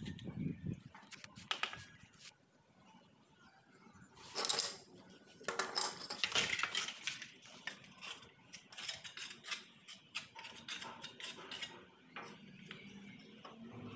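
Small ceramic wall tiles clicking and clinking as they are handled and tapped into place, irregular sharp taps that come thickest a little before halfway through.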